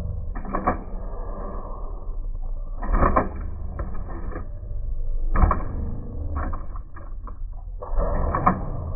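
Small servo motors in a model 1962 Impala lowrider hopper, an AMT kit, whirring in several short bursts as they lift and drop the car's suspension, with plastic clatter as the wheels come down on the table.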